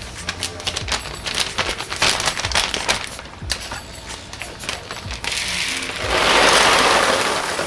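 Dry hardwood and soy hull pellets shifting in a plastic mixing bowl as it is lifted off a kitchen scale and handled, a run of small clicks and knocks. About six seconds in a louder, even rustling rush sets in as a clear plastic grow bag is handled.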